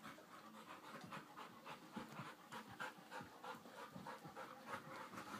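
A dog panting quickly and steadily, about four breaths a second, tired from play.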